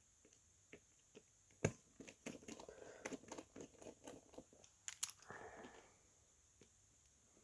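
Handling noise during a phone battery repair: a sharp knock, then a few seconds of crinkling, crackling rustle and small clicks that die away near the end.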